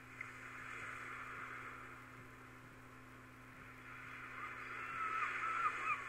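A steady hiss over a low hum, then about four and a half seconds in a rapid series of short bird-like chirping calls, about three a second, growing louder.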